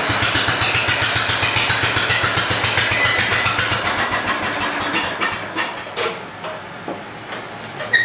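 Wheel Horse 414-8 lawn tractor engine running with an even beat, then shut off about five to six seconds in, slowing to a stop. A few light knocks follow.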